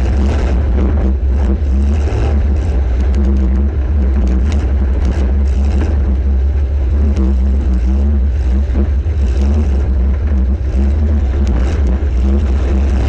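Engine of a welded compact demolition-derby car running hard and steady, with a deep low drone. Scattered sharp knocks and clanks of metal on metal run through it.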